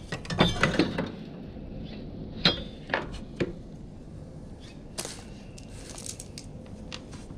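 A few sharp metallic clinks and knocks from hand tools and steel parts being handled at the mower deck during belt removal, a quick cluster near the start and the loudest, ringing clink about two and a half seconds in.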